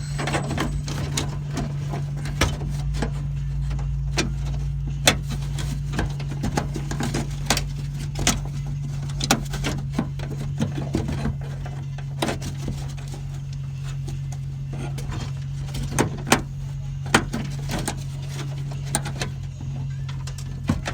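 Scattered clicks and knocks from hands and tools working at a car's door lock and latch mechanism, over a steady low hum. The door has been shut while the latch mechanism was unclipped, so it is stuck.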